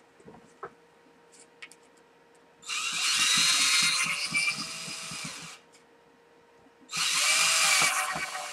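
Power drill running in two bursts of a few seconds each, the speed sagging slightly as it loads up, most likely driving screws through the wooden handle scales. A few faint clicks of handling come first.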